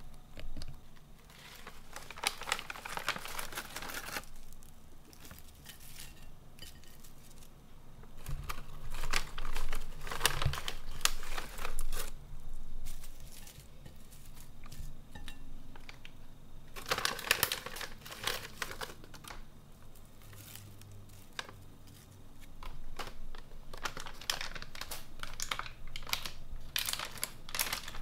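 Foil-lined plastic snack bag crinkling in several bursts as crispy seaweed sheets are taken out and handled, with a couple of dull knocks partway through.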